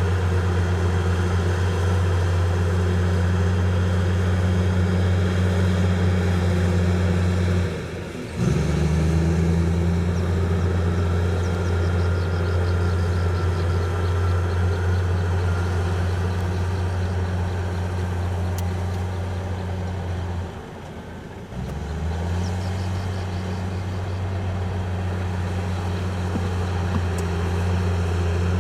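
Heavy diesel engine of earth-moving machinery running with a steady low drone. It drops away briefly twice, about a third of the way in and again about three quarters through, each time picking up again.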